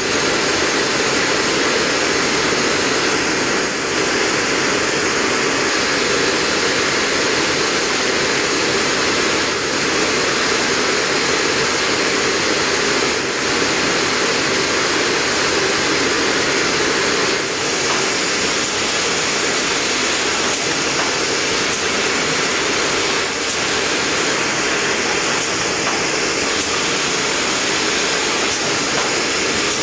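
Fidia VAMPA TREVI shopping-bag making machine running with a steady, loud, even rushing roar that cuts in suddenly at the start.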